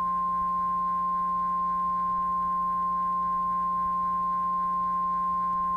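NOAA Weather Radio 1050 Hz warning alarm tone: one steady, unbroken pure tone, sounded to signal that an alert message follows. A low steady hum runs under it.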